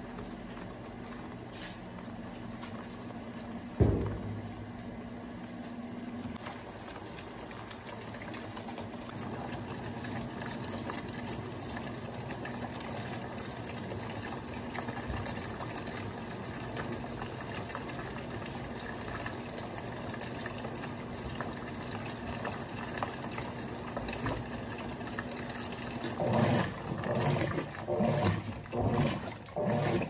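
Colormaq LCA12 top-loading washing machine filling with water: a steady rush of water running in through the dispenser into the drum, with a low hum under it and one thump about four seconds in. In the last few seconds the agitator starts, with repeated sloshing strokes of water and clothes.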